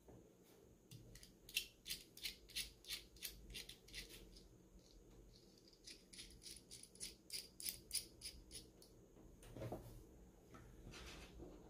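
Faint, quick metallic clicking from small hardware being worked while a speaker terminal is fastened: two runs of light ticks, about three a second, early and again in the middle, with a couple of soft knocks near the end.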